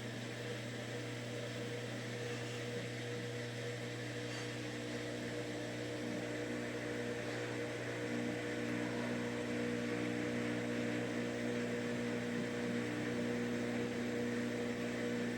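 Samsung front-load washing machine running an empty spin cycle: a steady hum with several held tones over a rushing noise, growing a little louder about halfway through as the drum speeds up. The owner takes the noise for a bad drum bearing.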